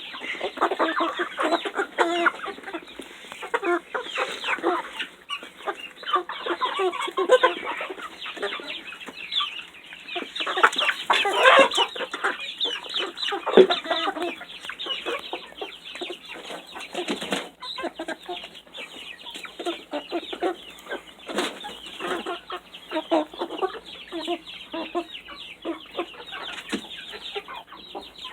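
A flock of young Buff Orpington chickens clucking and chattering without a break as they feed on mealworms, with a few sharp knocks in the middle.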